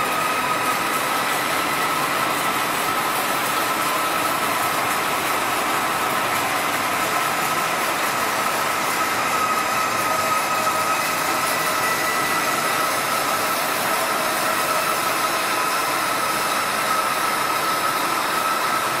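Hydraulic double-chuck spindle veneer lathe running: a steady mechanical noise with a constant high whine.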